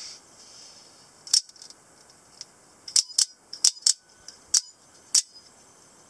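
Out-the-front automatic spring knife, its blade fired out of the handle and pulled back in again and again. It gives a series of sharp snaps, about seven in four seconds, starting a little over a second in.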